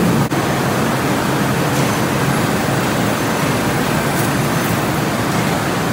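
Steady, loud noise of factory machinery running, an even drone with no distinct rhythm or pitch.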